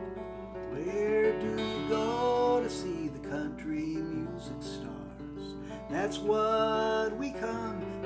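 Acoustic guitar strumming a song's instrumental intro, with a melody line over the chords that slides up into its notes about a second in and again around six seconds.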